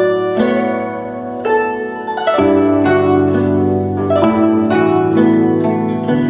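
Guzheng solo, a hollow-carved paulownia-soundboard Chinese zither, playing a slow melody of plucked notes that ring on over sustained low strings. A new low bass note is struck about two seconds in, and another just past four seconds.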